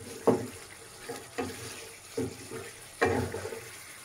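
A spatula stirring and scraping chicken drumsticks in thick masala gravy in a pan, about five strokes in four seconds, with the gravy sizzling. This is the kosha stage, where the curry is stirred down until it thickens.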